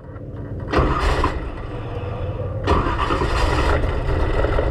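Race car engine starting about a second in, catching and running on, then picking up again a couple of seconds later as it is given throttle.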